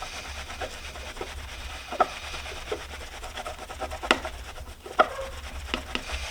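Scotch-Brite pad with number 7 polishing compound being rubbed back and forth over a metal socket-set box, a continuous scrubbing hiss broken by a few sharp clicks, the loudest about two, four and five seconds in.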